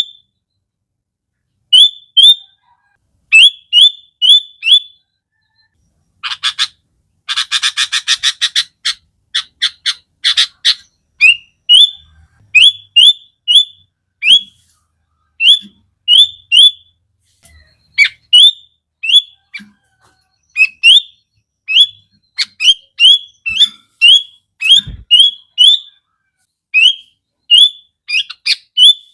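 Sooty-headed bulbul singing: a long run of short, loud, rising whistled notes, with a fast, harsh chattering rattle about six to ten seconds in.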